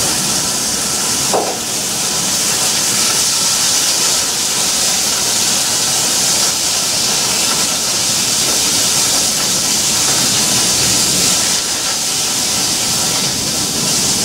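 Vegetables sizzling and steaming in a hot sauté pan after a splash of water hits it: a loud, steady hiss. A short knock of a utensil on the pan about a second and a half in.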